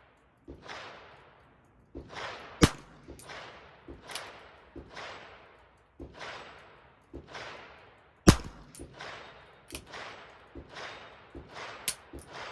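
Sharp cracks of a Ruger Super Wrangler revolver firing .22 Short rounds, two loud shots about five and a half seconds apart and a smaller crack near the end. Behind them runs a steady series of echoing gunshot reports, about one every half second to second.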